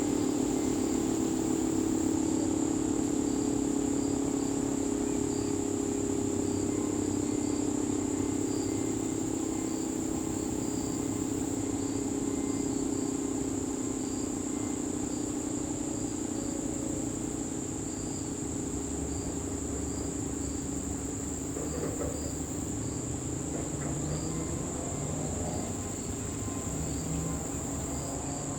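Federal Signal 2T22 dual-tone warning siren sounding a steady chord that slowly fades and sinks a little in pitch. Crickets chirp steadily throughout.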